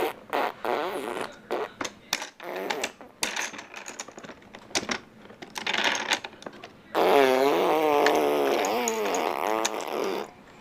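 A baby blowing raspberries, buzzing his lips with his voice: a string of short sputters, then one long raspberry from about seven seconds in whose pitch wobbles up and down.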